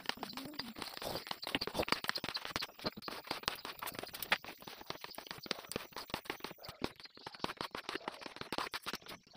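Flat hand-held spreader scraping yellow contact glue across a plywood panel: a dense, irregular scratching that goes on throughout.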